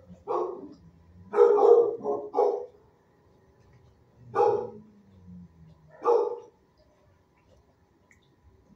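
Dog barking in a shelter kennel pod: about six barks in uneven bursts, with a quick run of three about two seconds in.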